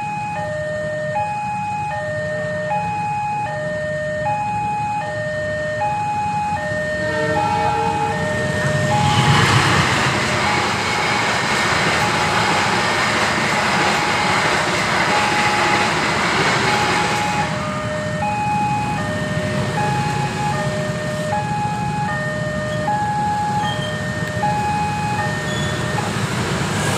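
Railway level-crossing warning alarm sounding a steady alternating two-tone chime, high then low, about one pair every second and a half. A train rushes past from about eight seconds in to about seventeen seconds, loudest as it arrives, partly covering the alarm.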